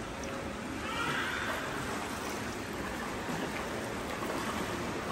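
Indoor swimming pool ambience: a steady wash of water splashing and lapping from swimmers moving through the lanes.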